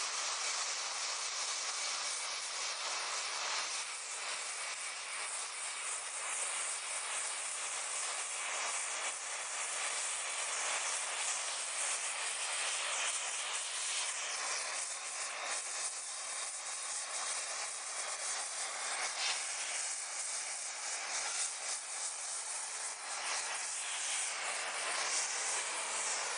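A gas torch flame hissing steadily as it heats a steel bar red-hot for bending.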